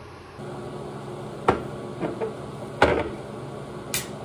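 A Heineken beer can being handled and opened: four sharp metallic clicks and knocks, roughly a second apart, over a steady low hum.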